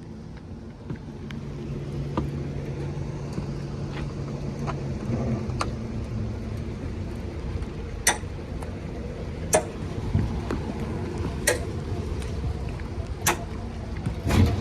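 Steady machine hum with sharp clicks about every two seconds in the second half, and a loud thump at the very end.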